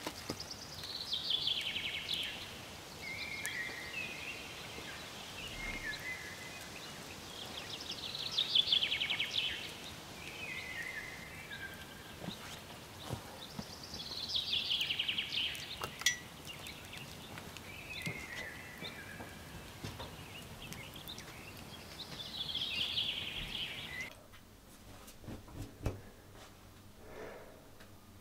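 A songbird singing a descending trilled phrase four times, each phrase followed by a few lower notes, over the woods' background, with a few light knocks in between. About 24 seconds in, the birdsong stops and the background turns quieter.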